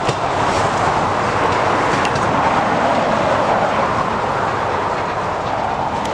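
Durango & Silverton narrow-gauge train rolling past, a steady rumble of wheels on rail with a few sharp clicks, easing slightly near the end.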